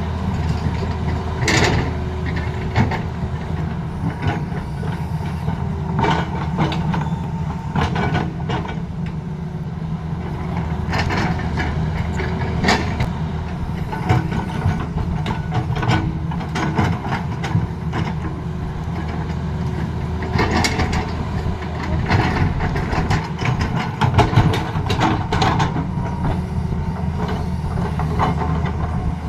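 Tata Hitachi excavator at work: its diesel engine runs steadily, with irregular clanks and scrapes from the working machine every second or two.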